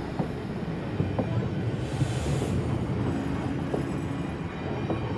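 Wooden heritage passenger coaches rolling slowly past on the track: a steady low rumble with several sharp clacks as the wheels cross rail joints.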